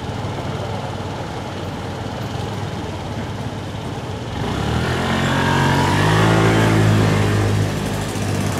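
City street traffic noise, with a motor vehicle's engine passing close by from about halfway through, its drone getting loud and then easing off near the end.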